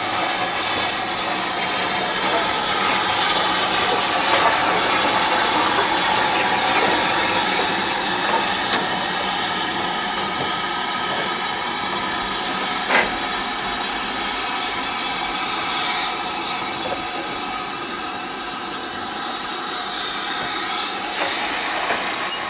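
Southern Railway U class 2-6-0 steam locomotive 31806 arriving slowly with its coaches: a steady hiss of steam over the rolling train, with a single sharp clank about halfway through and a couple more knocks near the end.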